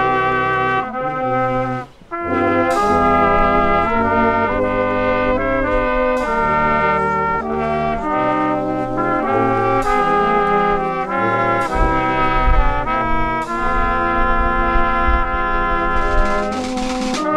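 Small brass band of trumpet, French horn and lower brass horns, with a snare drum, playing a tune in parts. There is a short break in the playing about two seconds in, and occasional drum strokes.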